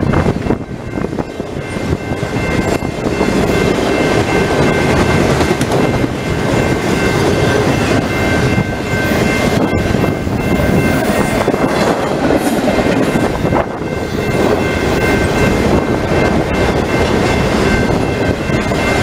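Intermodal freight train of truck trailers on flatcars rolling past close by: a steady, loud rumble and rattle of wheels on rail and swaying cars. A faint steady high whine runs underneath, with a single sharp click about ten seconds in.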